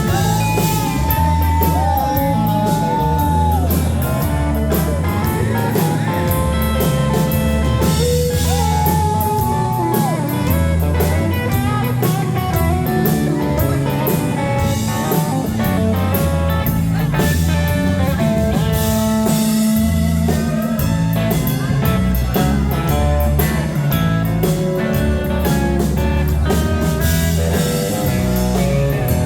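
Live country-rock band playing an instrumental break: a lead line of bent, held notes over bass, rhythm guitar and a steady drum beat with cymbals.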